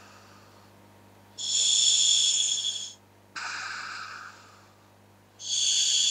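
Breathing through a gas mask fitted with scuba regulators: two loud inhalations, each a hiss with a high whistling ring from the regulator's demand valve lasting about a second and a half, with a softer, lower rush of exhalation between them.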